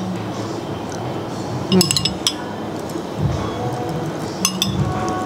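Cutlery clinking against a bowl as food is picked out of a bowl of bakwan Malang soup. There are a few sharp clinks about two seconds in and a couple more near the end.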